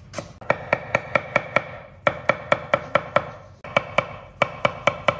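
Chinese cleaver chopping ginger on a wooden chopping board: quick knife strokes about five a second, in three runs with short pauses between, as the ginger is cut fine.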